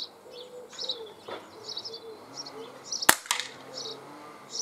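A single shot from a Sig Sauer M17 CO2 blowback pellet pistol about three seconds in, a sharp crack, followed about a fifth of a second later by a fainter knock that the shooter takes for the pellet hitting the target's wooden frame. Small birds chirp repeatedly throughout.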